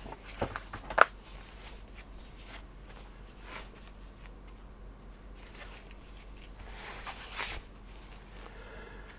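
Paper sheets rustling as they are handled and turned over, with a sharp click about a second in and a longer rustle later on.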